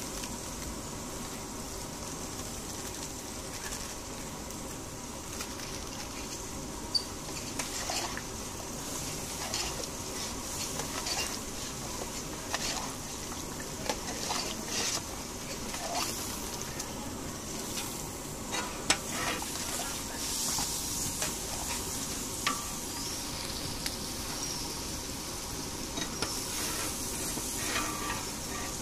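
Thick ambula khata (sour mango chutney) simmering and sizzling in a large iron wok, with scattered sharp clicks and knocks from time to time, as of the long metal ladle scraping and striking the pan.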